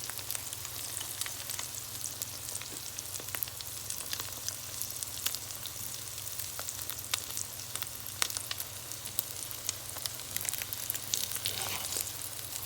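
Egg-soaked bread and croissant pieces frying in a pan over medium heat: a steady sizzle full of fine crackles.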